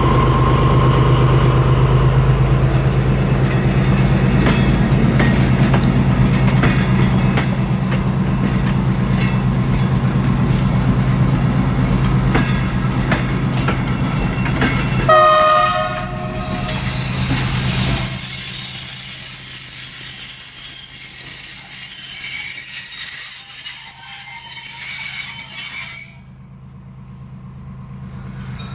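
MÁV M41 diesel-hydraulic locomotive's engine running steadily as it pulls its train away, with one short horn blast about halfway through. Then the passing coaches' wheels squeal high-pitched for several seconds, and the sound cuts off suddenly near the end.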